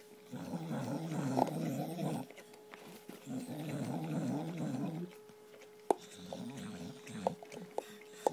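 Staffordshire bull terrier making low, wavering growling noises while licking peanut butter from a jar, in two long runs. A few sharp knocks follow near the end.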